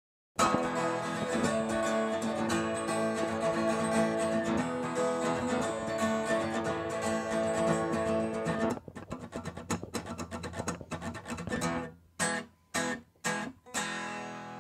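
Acoustic guitar strummed, starting suddenly and going steadily for about eight seconds, then looser. Near the end come a few short, choked strums, each cut off quickly.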